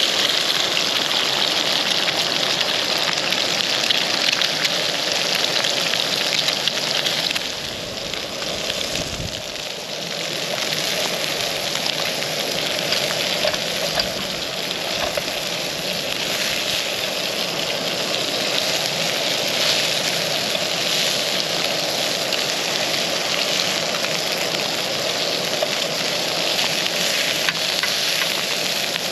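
Food sizzling and crackling steadily in a frying pan. It dips briefly about eight seconds in, with a low thump near nine seconds.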